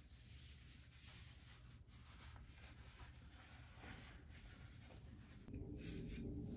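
Faint rubbing of a cloth against a carved wooden spoon, over low steady room noise. A louder low rumble comes in near the end.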